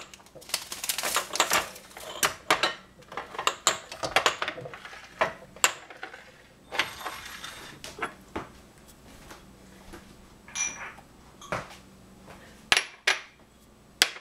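Glass dishes and metal pans clinking and clattering as they are handled, a quick run of clinks for the first half, then scattered single knocks.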